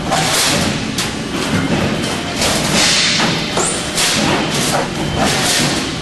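Cable tray roll-forming machine running a perforated steel strip through its forming rollers: a steady noise with repeated heavy thuds at uneven spacing, roughly one or two a second.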